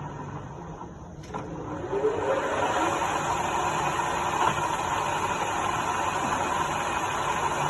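TOS Olomouc FGU 32 universal milling machine: the running drive dies down, a click sounds about a second in, then the motor spins up with a rising whine and settles into a steady run.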